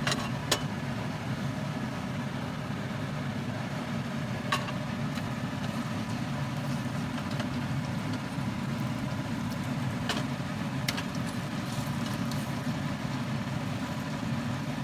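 Pork chops frying in oil in a pan, sizzling over a steady low hum, with a few sharp pops.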